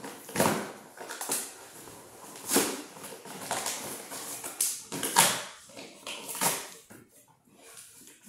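Adhesive tape and plastic packaging being pulled and torn off a boxed toy figure in several short rips, roughly one a second.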